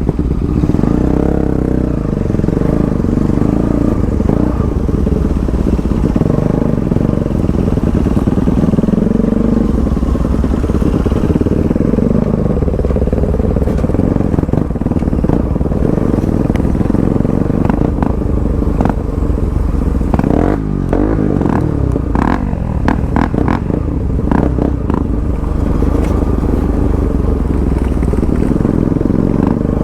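Motorcycle engine running while riding a rough road, its pitch rising and falling with the throttle. In the second half comes a string of knocks and rattles from the bike jolting over the bad surface.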